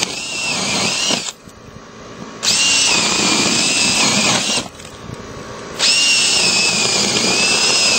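A power drill runs in three spells with short pauses between, a steady high whine. It is boring corner starter holes through vinyl siding so a saw blade can cut the opening for an outlet box.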